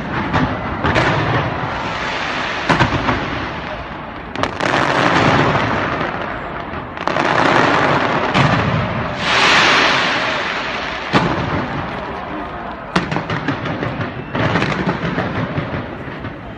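Fireworks fired from the sides of a skyscraper: sharp bangs every few seconds over a near-continuous dense crackle, with a quick run of bangs near the end.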